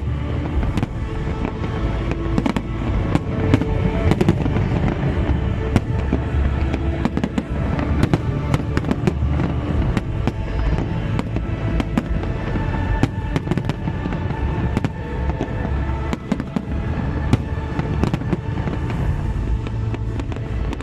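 Fireworks display: a dense, irregular run of sharp bangs and crackles, with music playing alongside.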